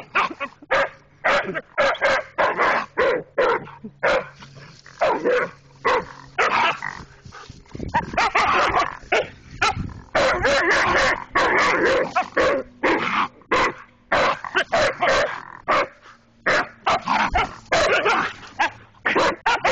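Huskies barking and yipping in rapid short calls, several a second and nearly without pause, at a raccoon caught in a wire live trap.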